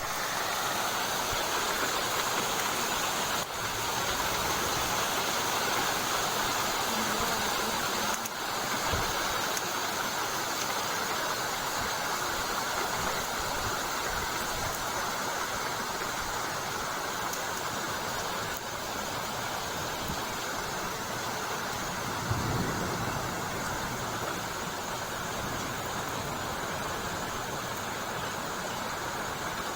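Heavy rain pouring down steadily, a dense, even hiss. A short low rumble rises out of it about three-quarters of the way through.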